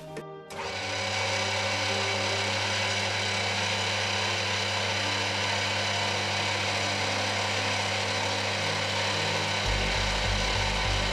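Electric machine tool starting up about half a second in and then running steadily with a low hum. Near the end a lower, pulsing note joins in.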